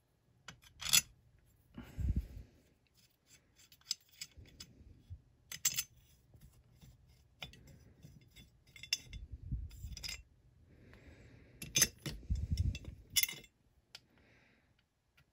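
Metal hand tools working hex bolts out of an outboard motor block: scattered sharp metal clinks and scraping, with a few dull knocks about two, nine and twelve seconds in.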